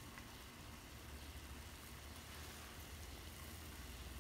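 Faint steady low hum and light hiss of a pan of rice pilaf cooking over a gas burner, with no distinct sizzle or stirring scrapes since the rice has no moisture left.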